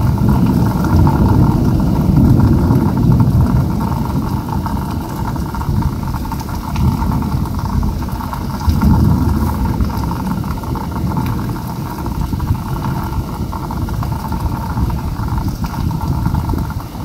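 Heavy rainstorm: a steady hiss of hard rain under a loud, low rumble that swells about two seconds in and again around nine seconds.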